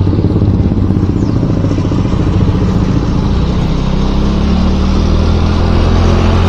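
Motorcycle engine running steadily while riding, its low, even note under a rushing haze of wind and road noise.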